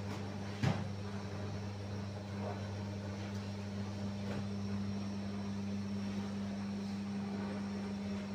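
Automatic dough divider-rounder running with a steady electric motor hum, with one sharp knock just under a second in and a few faint clicks as dough balls pass through.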